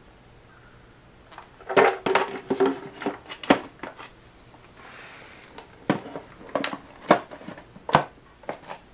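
Irregular clicks and knocks of hard parts of a vacuum cleaner being handled, a dozen or so strokes, the densest cluster about two seconds in, some with a brief ring. The motor is not running.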